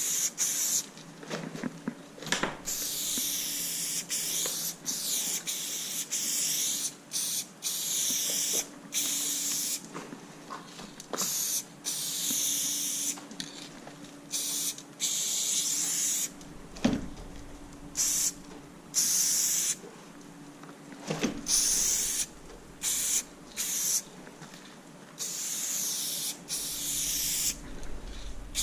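Aerosol spray paint can spraying in repeated bursts of a second or two, with short gaps between them. A few sharp knocks come in between the bursts.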